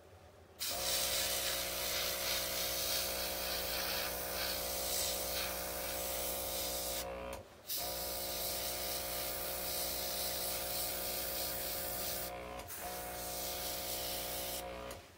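OPAWZ airbrush spraying temporary ink in a steady hiss, with the even hum of its small air compressor under it. The spray stops briefly about halfway, runs again, and cuts off near the end.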